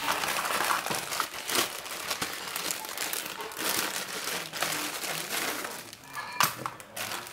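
Clear plastic bag crinkling and rustling as it is handled and opened, with a few sharper crackles near the end.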